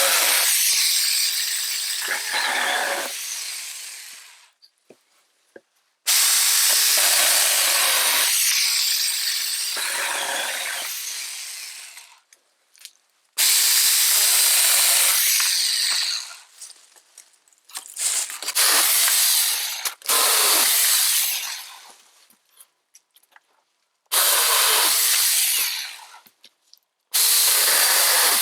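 Battery-powered mini chainsaw cutting firewood in repeated bursts, about six cuts. Each starts abruptly at full speed, chews through the wood for a few seconds, then winds down as the trigger is released, with short quiet gaps between cuts.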